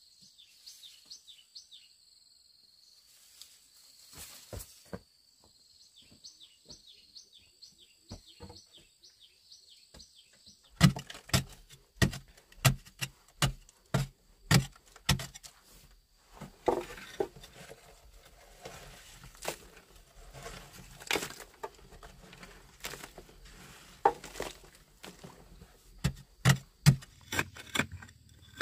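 Insects chirping in quick high repeats over faint taps. From about a third of the way in come loud, sharp blows of a long-handled digging tool striking hard, layered earth, about two a second, then scraping and loosened soil falling, with a few more hard strikes near the end.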